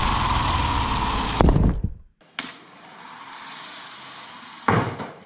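Lego Technic pullback motor of the 42138 Mustang Shelby GT500 whirring as the car rolls across a tile floor, its pitch dropping slightly, ending in a sharp knock about a second and a half in. After a short break there is a quieter steady noise and a short loud sound near the end.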